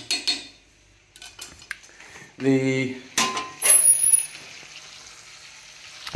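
A metal utensil scraping and knocking against a cast-iron cauldron, with a loud clatter and a brief high metallic squeal a little after halfway. From then on comes a steady sizzle as the pot of ribs and marinade sits on the fire uncovered to reduce the sauce.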